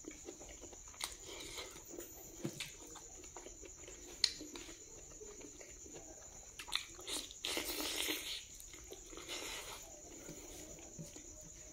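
Close chewing and mouth sounds of a person eating rice and pork fat by hand: scattered wet clicks and smacks, with a louder stretch of chewing about seven and a half seconds in.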